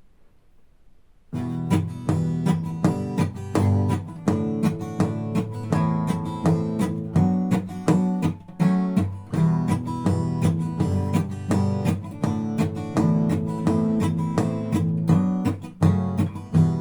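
Acoustic guitar strummed in a driving rhythm, the strokes mixed with knocks on the guitar's body, starting about a second in.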